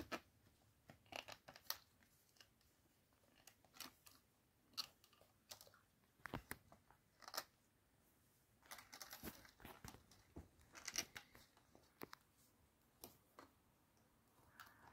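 Faint, irregular small clicks and rustling of a wire being handled and fitted into the spring terminals of an electronics experiment kit, with a busier stretch of rustling about two-thirds of the way through.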